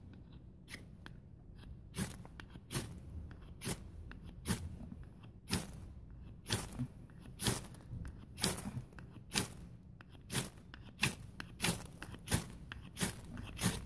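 Ferrocerium rod (pederneira) being scraped hard with a knife blade, stroke after stroke, in a regular series of short, sharp rasps, roughly one to two a second, as sparks shower onto the tinder.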